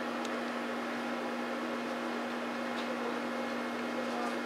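Steady background hiss with a constant low hum running under it, and a few faint, distant ticks.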